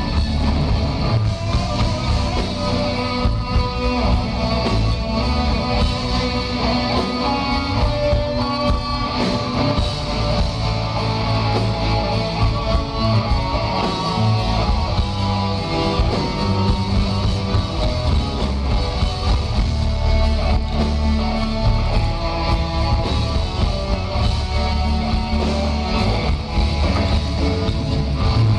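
Live rock band playing: electric guitar, bass guitar and drums.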